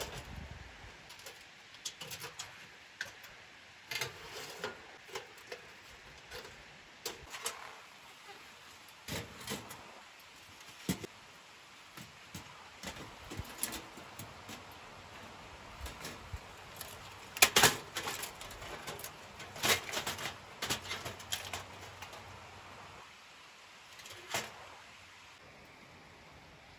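Thin titanium sheet-metal panels of a folding camp stove being swung on their hinges and clipped together: scattered light metallic clicks and clanks, loudest a few knocks about two-thirds of the way through.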